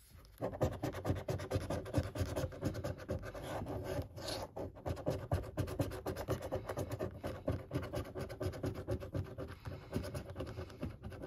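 A coin scratching the coating off a paper scratchcard in many quick back-and-forth strokes, starting about half a second in.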